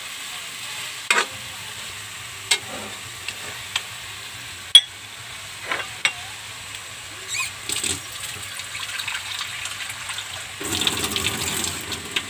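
Pork cooking in soy sauce and vinegar in a wok, a steady sizzle broken by a few sharp clicks and knocks. A little over ten seconds in, the sound turns louder and denser.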